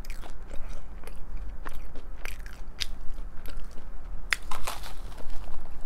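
A person chewing food close to the microphone: irregular wet mouth clicks and smacks, several a second, a few of them louder near the middle and about three-quarters through.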